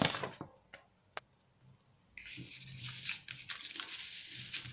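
A sheet of paper being slid under a rolled-paper frame: a few light taps in the first second or so, then a steady papery rustle of paper rubbing against paper from about two seconds in.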